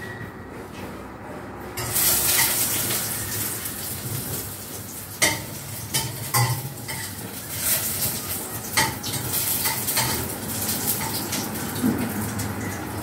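Food sizzling in a hot pan, starting suddenly about two seconds in. A metal utensil clinks against the pan several times as the food is stirred.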